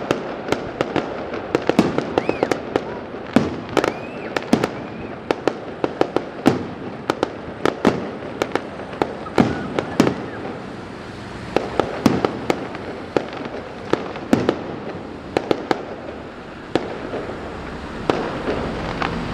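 Fireworks display: a quick, irregular run of sharp bangs and crackling reports from bursting shells, with a couple of short rising whistles a few seconds in.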